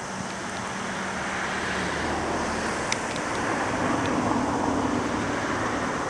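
Tobu 8000-series electric train moving slowly through the depot tracks, its running noise gradually growing louder, with a low hum that shifts to a slightly higher pitch about halfway through and a few faint clicks.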